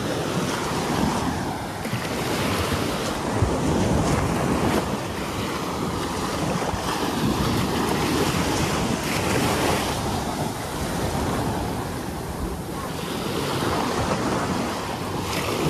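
Ocean waves breaking and washing on a beach, the surf swelling and ebbing every few seconds, with wind buffeting the microphone.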